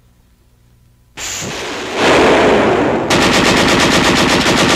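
Machine-gun fire on an old wartime newsreel soundtrack. After about a second of near silence a rushing noise starts and swells. About three seconds in it gives way to a steady, rapid stream of shots, roughly ten a second.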